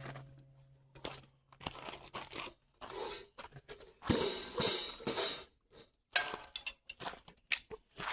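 A drum's low note rings out and fades over the first two seconds or so. After that come irregular crunching and rustling noises.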